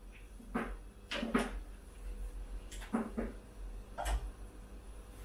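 Kitchen clatter from cooking at a stove: about six knocks and clinks of pans, utensils and cupboards, several coming in quick pairs.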